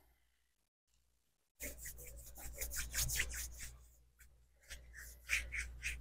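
Quick scratchy rubbing strokes close to the microphone, several a second, in two bursts: one starting about a second and a half in and another near the end.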